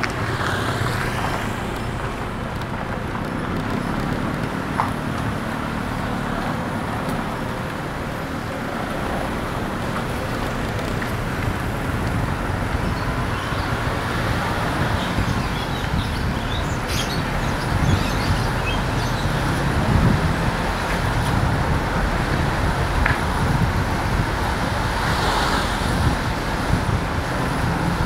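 Steady road noise of a car being driven, heard from inside the cabin: a low engine and tyre rumble, with a few faint ticks now and then.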